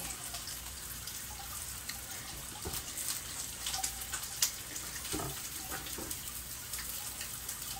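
Bacon sizzling in a frying pan on the stove: a steady crackling hiss with scattered small pops.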